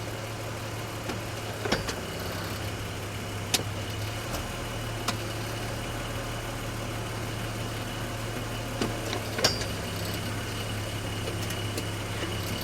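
BMW X5 E53 idling steadily while the automatic is shifted between park, drive and reverse, with several sharp metallic pings or clunks from the driveline, the loudest about three and a half and nine and a half seconds in. The clunk comes on engaging reverse, which a forum member put down to a bad guibo (driveshaft flex disc).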